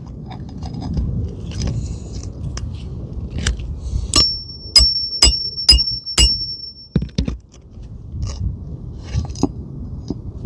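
Hammer blows on a metal roof snake nailing tool driving a roofing nail under an asphalt shingle: five sharp strikes about half a second apart, each with a high metallic ring. Lighter taps and scraping come before and after them.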